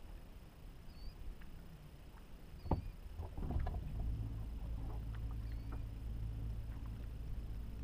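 A sharp knock, a little clatter, then a boat motor starts up and runs with a steady low hum. Faint high bird chirps sound now and then.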